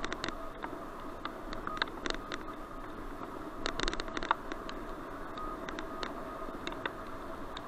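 Helmet-mounted action camera picking up a bicycle ride over a dirt path: irregular clicks and knocks from the jolting mount and bike over a steady hiss, with a faint steady whine.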